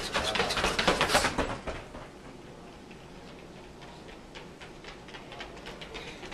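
Quick footfalls of two sprinters running on a hard hallway floor, loud as they pass close, then fading away. A second pair's running footsteps grow louder near the end.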